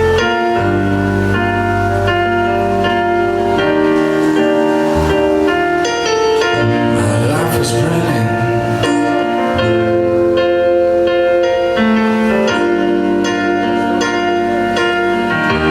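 Live pop band playing an instrumental passage: held keyboard chords over a bass line that changes every second or two, with a brief hissing swell around the middle.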